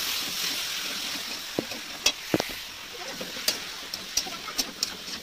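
Food sizzling in a metal pan as a metal spatula stirs and scrapes it, with sharp clinks of the spatula against the pan from about two seconds in. The sizzle fades gradually, and the pan rings briefly twice.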